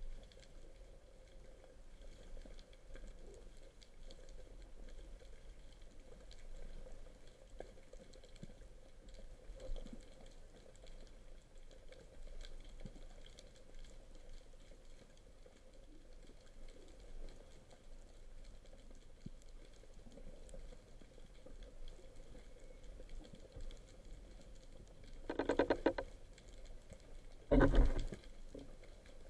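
Underwater ambience picked up by a camera on a speargun: faint, continuous crackling and ticking, with two short, louder bursts of noise near the end.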